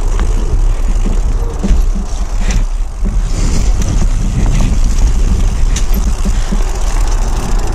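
Mountain bike riding down a rocky, wet dirt trail: a steady low rumble of rolling and wind noise on the bike-mounted camera, with scattered rattles and clacks as the bike goes over rocks.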